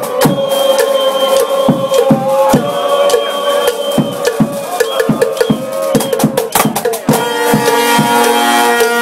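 Parade marching band playing: horns holding sustained notes over sharp drum hits, with fuller layered horn chords from about seven seconds in.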